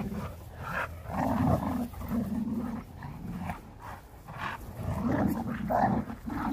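Two dogs, a cane corso and a tan dog, growling in play while tugging against each other on a rope toy, in a string of short growls.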